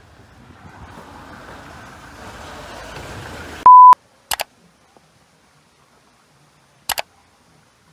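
A single loud, steady high beep lasts about a quarter of a second, cutting off a rising noise of walking outdoors about three and a half seconds in. Then comes dead silence, broken by a quick pair of sharp clicks half a second later and one more click near the end.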